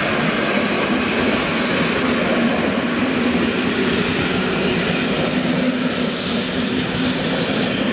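Railway passenger coaches rolling past close by, their wheels running steadily on the rails. The sound turns duller about six seconds in.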